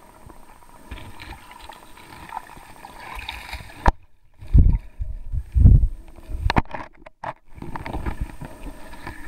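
Muffled river water heard through a waterproof camera's housing held underwater. A sharp click comes about four seconds in, then heavy low thumps and sloshing as the camera is moved about and handled in the water.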